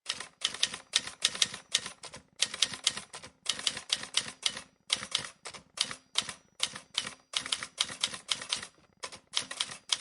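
Typewriter keys clacking in quick runs of about six strokes a second, broken by short pauses, like a typing sound effect.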